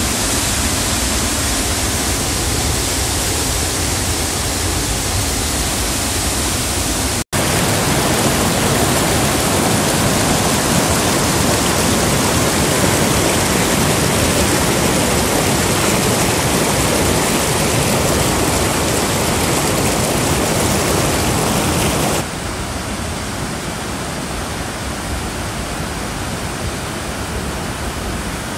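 Floodwater in a swollen creek rushing over a rocky waterfall and rapids: a steady, loud rush of water. It cuts out for an instant about seven seconds in, returns louder, and drops to a lower level for the last few seconds.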